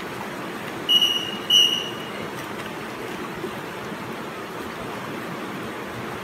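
Two short, high-pitched whistle blasts about a second in, the second a little longer, over a steady rush of river water.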